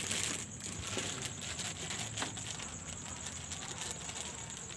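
Night ambience: a steady high-pitched insect trill, with scattered soft clicks and rustling underneath.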